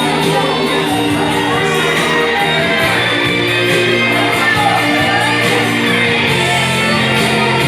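Live gospel worship music in a large hall: a band plays with a voice singing and calling out over it.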